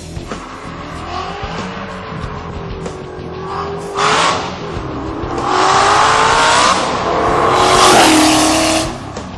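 Twin-turbocharged Ford GT40's V8 revving hard under full acceleration with its rear tyres spinning and smoking. The engine pitch climbs in three loud surges, about four, six and eight seconds in, and cuts off suddenly near the end.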